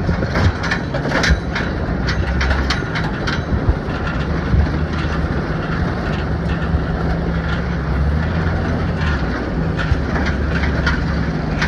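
2013 Toyota Tacoma driving slowly over dirt, its engine running low and steady, with repeated sharp metal clanks from its D-ring shackles rattling, many in the first few seconds and more near the end.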